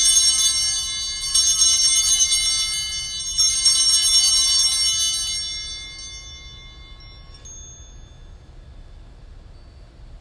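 Altar (sanctus) bells, a cluster of small bells, are shaken three times about two seconds apart. Each shake gives a bright jangle of many tones, and the ringing dies away about six seconds in. The ringing marks the elevation of the consecrated host.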